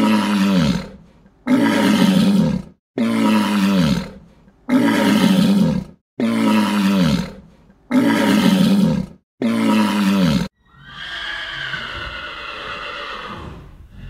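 A short, low animal call repeated about seven times at even intervals, each falling in pitch and cut off abruptly, as if one recording were looped. About three quarters of the way through it gives way to a different, quieter, steadier and higher-pitched animal call.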